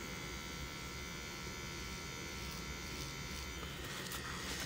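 CNC CW2 pen-style tattoo machine running with a steady buzz as its needle works into skin.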